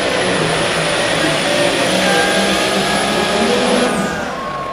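Pro Stock pulling tractor's turbocharged diesel engine running flat out under the load of the weight sled, loud, with a high turbo whine on top. Near the end the whine drops away quickly and the engine note falls as the throttle is cut at the end of the pull.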